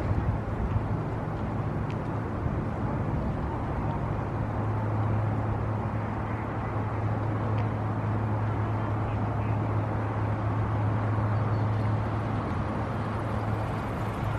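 A steady low engine hum over a broad outdoor rumble, unbroken and unchanging in pitch.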